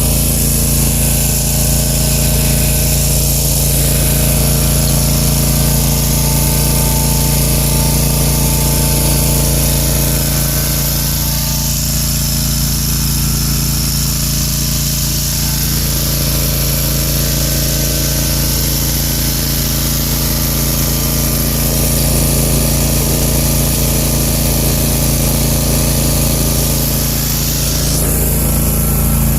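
Zero-turn riding mower's engine running steadily at a constant speed, close to the microphone. A slight change in the high hiss comes near the end.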